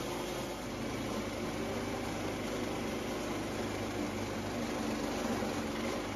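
Portable bandsaw sawmill's small gas engine running steadily while the band blade cuts along a white oak log.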